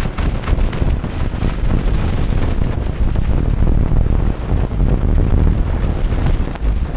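Loud, continuous rough rumble and crackle from a film's optical soundtrack. The marks made on the film by mouth (licking, dribbling and spitting) cross into the soundtrack area, so the image itself is heard as noise.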